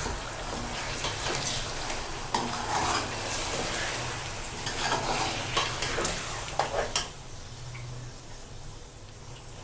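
Chicken and browned onions sizzling in oil in a cooking pot, stirred with a spoon scraping against the pan. The stirring stops about seven seconds in and the sizzling carries on more quietly.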